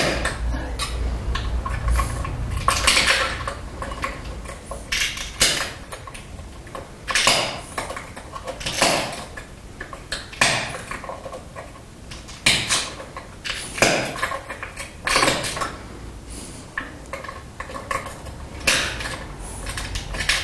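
Glass being pressure-flaked with a hand-held pressure flaker: a string of short, sharp glassy snaps and scrapes, irregularly about every second or two, as small flakes are pressed off the edge of a glass arrowhead held in a wooden form.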